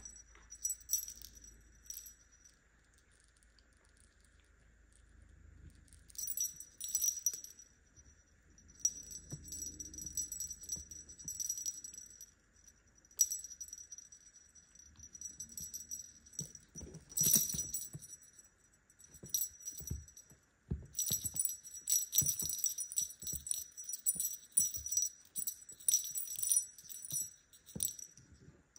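Small bell on a feather wand cat toy jingling in irregular bursts as a kitten bats and bites at it, with some soft thumps in the second half.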